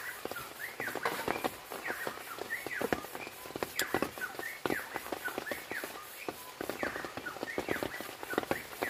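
Night-time animal calls: many short chirping calls, rising and falling in pitch, overlapping in quick irregular succession, mixed with scattered light taps and ticks.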